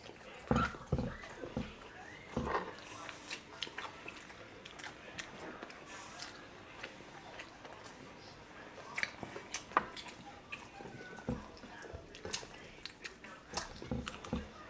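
Close-miked chewing and mouth sounds of people eating saucy rabbit adobo and rice by hand: wet smacks and small clicks at irregular intervals.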